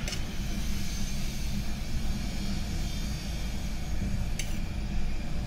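A steady low rumble, with two short clinks of a spoon against a drinking glass, one at the start and one about four seconds in.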